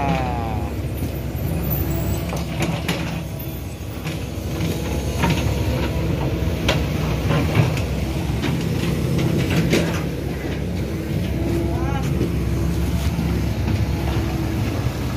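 Small hydraulic excavator's diesel engine running steadily as it digs sludge out of a flooded drain, with scattered knocks and clanks from the bucket and arm.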